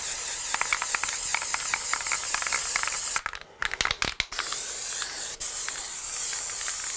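Aerosol can of Kilz primer spraying in a steady hiss, stopping briefly about three seconds in and again a moment later before spraying on.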